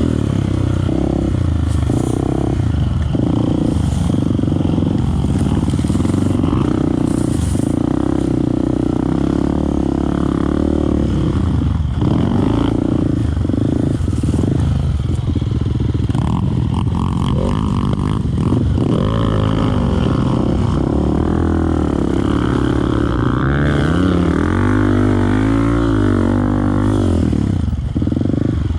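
Off-road motorcycle engine running under way, its pitch rising and falling repeatedly as the throttle opens and closes, most of all in the second half.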